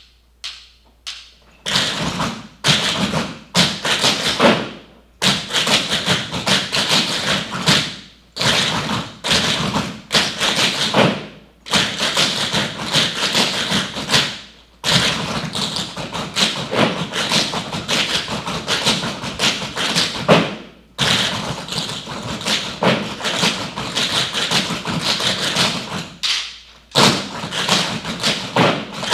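A group of tap dancers' shoes striking a wooden floor together in quick rhythmic runs of taps, broken every few seconds by brief pauses.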